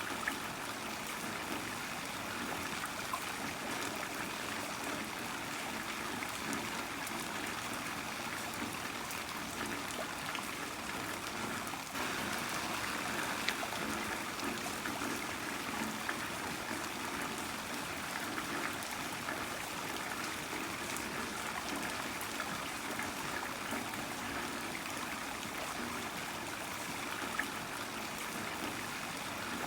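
Heavy rain falling steadily, with scattered sharp drop impacts among the hiss, a little louder from about twelve seconds in.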